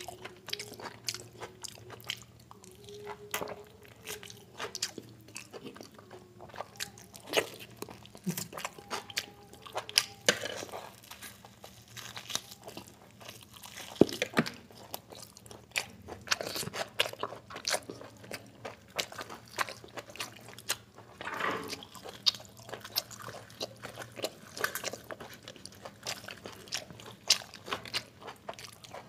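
A person chewing and biting mutton and biryani rice, with many irregular mouth clicks and smacks; around the middle he bites meat off a mutton bone.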